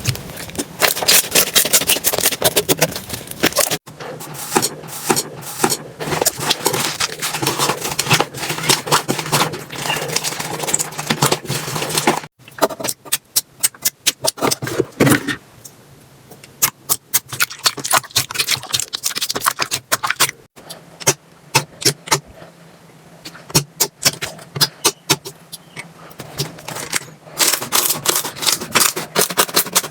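Slime being squeezed, poked and stretched by hand, giving dense crackling clicks and pops. The texture changes abruptly three times, about 4, 12 and 20 seconds in, with quieter, sparser popping between about 12 and 20 seconds.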